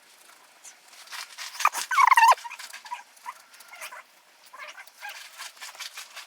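An animal calling: a loud, wavering, warbling call about two seconds in, with fainter calls and scattered clicks around it.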